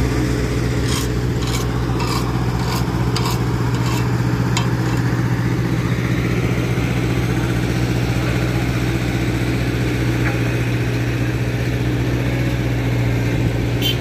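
Heavy diesel engines of asphalt-paving machinery running steadily at a constant speed. A string of sharp knocks comes in the first few seconds.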